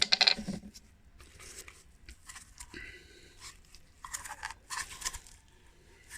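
Close handling noises of hands working small parts and a grease tube: a loud rustle at the very start, then scattered light clicks, scrapes and rustles, with a cluster of clicks about four to five seconds in.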